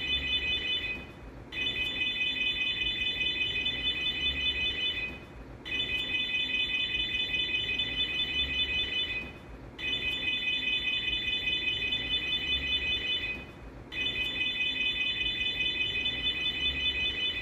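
FKS aftermarket car alarm siren on a Fiat Uno going off: a high-pitched, rapidly pulsing electronic tone. It sounds in stretches of about four seconds, each broken by a short pause of about half a second.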